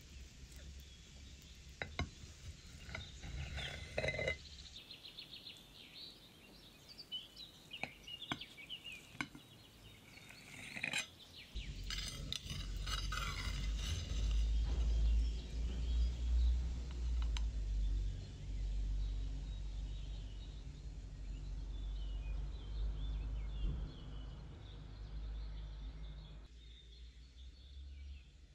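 Knife and metal cake server clinking and scraping against ceramic plates as a slice of cheesecake is cut and served, with scattered sharp clinks through the first dozen seconds. From about halfway a low rumble runs underneath and is the loudest sound.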